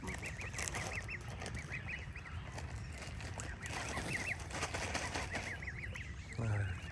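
A flock of fowl calling steadily as they are fed grain: a long string of short, quick calls, several a second, with a brief lower-pitched sound near the end.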